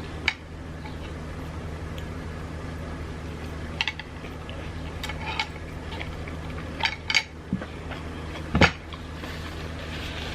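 Eating utensils clicking and tapping against dishes and food containers during a meal: a string of short sharp clicks, the loudest a knock about three-quarters of the way in, over a steady low hum.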